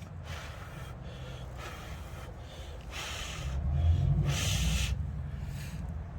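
A person blowing short puffs of breath, about one a second, onto a freshly soldered wire joint to cool the solder. The air hitting the microphone adds a low rumble that swells in the middle.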